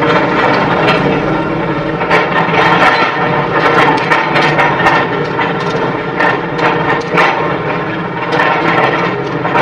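Chainsaw engine running under load, with irregular sharp crackles over it, typical of cutting through coconut wood.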